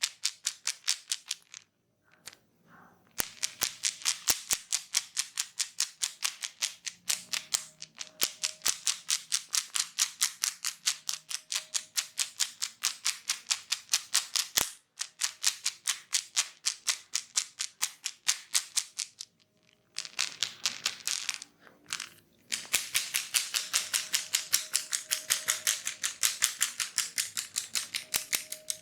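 Rapid, even series of sharp taps from hand tapping during a head massage, about five a second, with short pauses a couple of seconds in and about two-thirds through.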